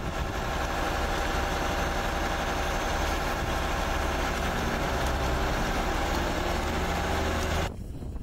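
Fire engine running steadily at idle with a low hum. Near the end it cuts off abruptly, leaving wind noise on the microphone.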